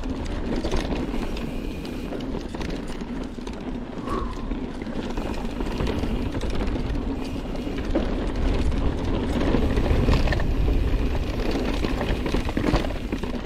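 Mountain bike, a YT Capra, rolling down a dirt singletrack: a steady rush of knobby tyres on dirt, with the chain and frame clattering over bumps. It gets louder about two thirds through as the bike picks up speed.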